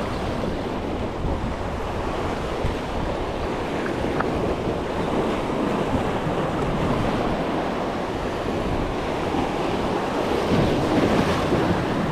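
Waves washing against a jetty, with wind buffeting the microphone.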